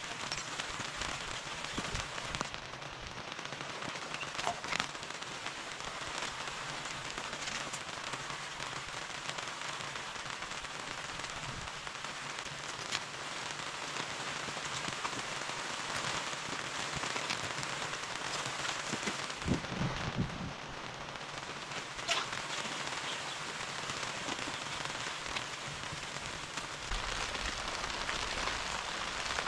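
Heavy rain falling steadily, with scattered sharp clicks of single drops striking.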